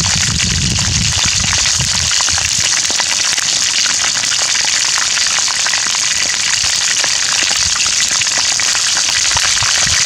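Chicken leg quarters deep-frying in hot bubbling oil in a pan: a steady, loud sizzle full of fine crackles.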